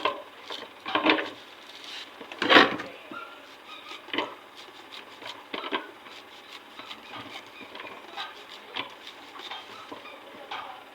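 Cooking utensils knocking and scraping against a pot: scattered knocks, the loudest about two and a half seconds in, then softer clatter.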